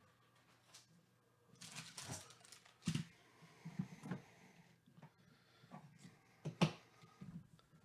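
A shrink-wrapped cardboard trading-card box being handled: light rustles of the wrap and scattered clicks and knocks, the loudest a single knock about six and a half seconds in as the box is set down.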